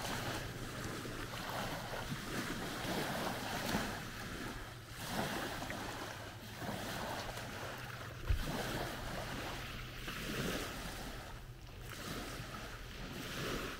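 Small lake waves lapping on a clay-and-sand shore, a soft wash that swells and fades every second or two. A single soft thump a little past halfway.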